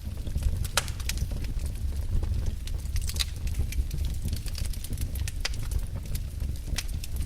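Wood fire burning in a fireplace, crackling with irregular sharp pops over a low rumble of flames; one of the sharpest pops comes just under a second in.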